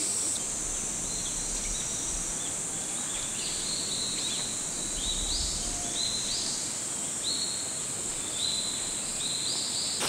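Forest ambience: a steady, high-pitched insect drone, with a short rising call from an insect or bird repeated many times.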